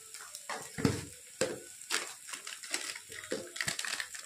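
Onions and ginger-garlic-chilli paste frying in mustard oil in a kadhai, crackling with irregular pops over a faint hiss.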